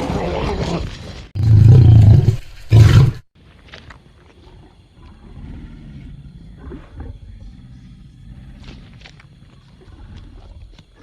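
Tiger roaring: loud roars through the first three seconds, the last two short and heavy, then much quieter low growling for the rest.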